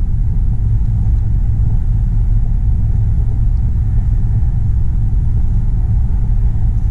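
Steady low rumble of a high-speed train running at speed, heard from inside the passenger car.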